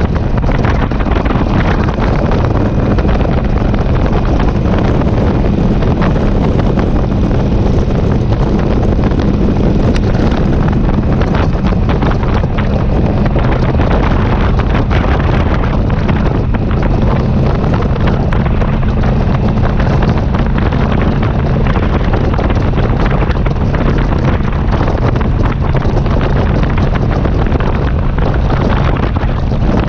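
Heavy wind buffeting on the microphone over the steady drone of a touring motorcycle's engine cruising at road speed.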